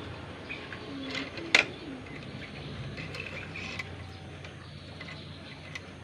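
A bird eating banana: scattered clicks and taps, the loudest a sharp click about a second and a half in, with a few faint short chirps around the middle.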